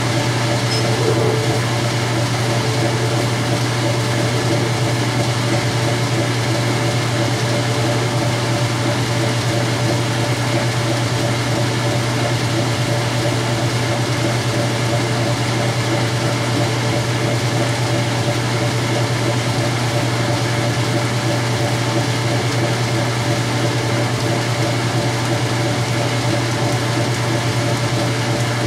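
Whirlpool-built direct drive top-load washer in its spin cycle, the motor and basket running at a steady spin speed with a constant hum.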